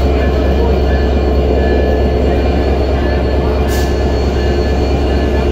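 EMD GT42ACL diesel-electric locomotive's engine running steadily at standstill, heard up close at the coupling end as a loud, even rumble with a few steady tones over it. A short hiss comes about three and a half seconds in.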